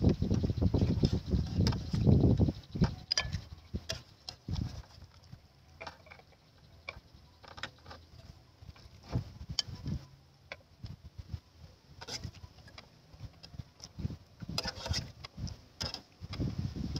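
Metal ladle clinking and scraping against an aluminium soup pot while stirring and scooping out broth, with scattered light ticks and small splashes. A low rumble runs through the first couple of seconds and comes back near the end.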